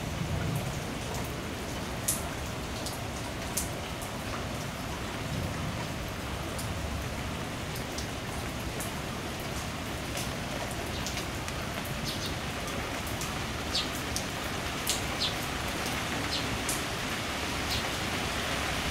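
Steady thunderstorm rain, with a scattering of louder, sharper drops striking close by, several of them in the last few seconds.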